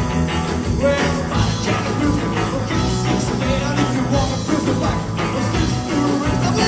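Live rock-and-roll band playing a fast number, the band's full sound loud and steady throughout.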